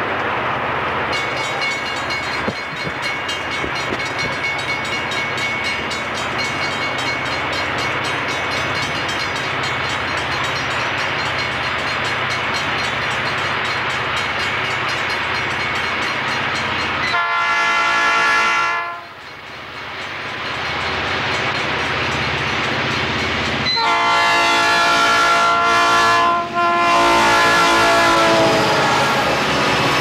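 Southern Pacific diesel freight locomotives working upgrade, a steady heavy engine rumble as the train approaches. About seventeen seconds in the locomotive air horn sounds. After a brief drop, longer horn blasts come near the end, with a short break between them.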